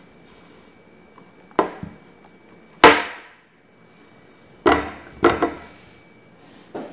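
Sharp knocks of a banana and a plate against a table top as the banana is lifted and dropped without hands. There are five knocks; the loudest comes about three seconds in and has a short ringing tail.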